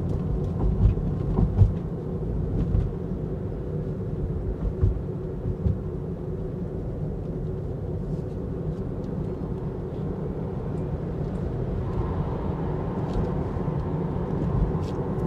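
Steady low road and tyre rumble inside the cabin of a moving electric Tesla Model 3, with no engine sound; a faint thin hum joins about twelve seconds in.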